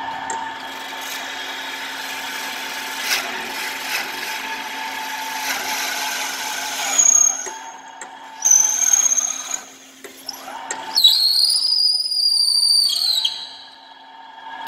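Wood copy lathe running steadily and cutting a wooden knife-handle blank, a constant motor hum under the rasp of the cutter on the wood. High-pitched squeals come in briefly around the middle and again, louder and longer, near the end.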